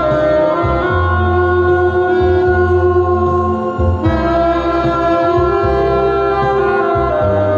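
Live music with a saxophone playing long held melody notes over a steady bass line, the notes changing about halfway through.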